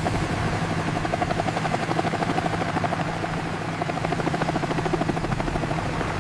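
Helicopter sound effect: the rotor chopping in a fast, steady beat over a steady engine hum.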